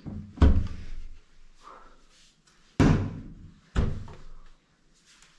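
Wooden kitchen cupboard doors being opened and banged shut: three sharp bangs, about half a second in, near three seconds and again a second later, with a lighter knock at the start.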